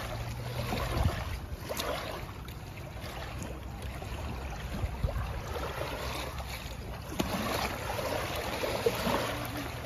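Water running in a small muddy stream: a steady wash with scattered small splashes and a low rumble underneath.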